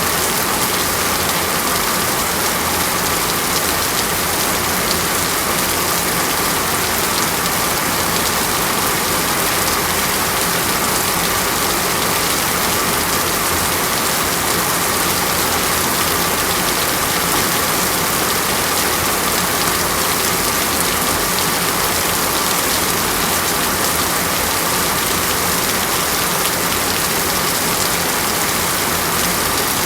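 Falling water, a steady even hiss like rain on a surface, with no change in level.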